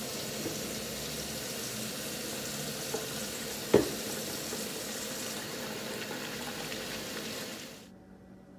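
Kitchen faucet running steadily into a stainless steel sink, a continuous rushing hiss that cuts off near the end. One sharp knock about halfway through is the loudest sound.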